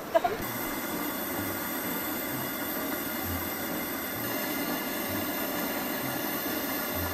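A steady hissing rush that holds at an even level.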